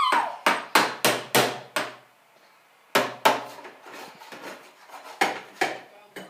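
A small child fake-coughing: two quick runs of short, sharp coughs, several a second, with a pause about two seconds in.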